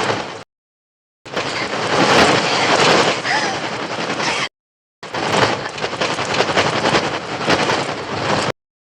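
A dense, crackling flurry of wing-flapping and shrieks from the film's synthesized bird-attack soundtrack. It comes in three loud bursts, each cut off by sudden dead silence.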